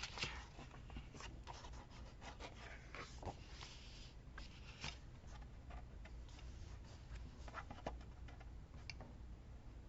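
Faint paper rustling and scattered light taps and rubs as sticker sheets are handled and stickers pressed down onto a notebook page.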